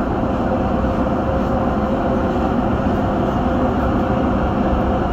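Dubai Metro train running between stations, heard from inside the passenger car: a steady rumble of wheels on rail with a faint steady tone above it.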